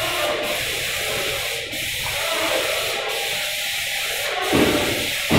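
Paint spray gun hissing steadily as it sprays primer onto a wall, the hiss dipping briefly about every second and a half.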